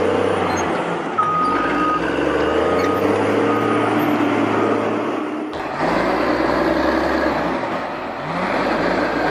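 Heavy diesel machinery running, with a run of short, high beeps in the first half. About halfway through the sound cuts to a different engine that rises in pitch several times.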